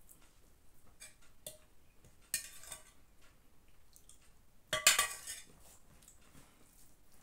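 Steel ladle clinking against a stainless steel pot: a short clatter as it is lifted from the pot, then a louder one, ringing briefly, as it is set back in about halfway through.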